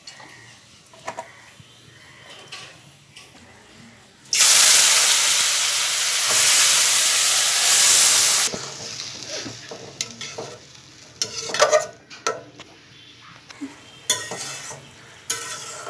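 Small fish with thin-cut potato and eggplant hitting hot oil in a steel wok: a loud sizzle that starts suddenly about four seconds in and lasts about four seconds. A spatula then scrapes and knocks against the wok as the mixture is stirred.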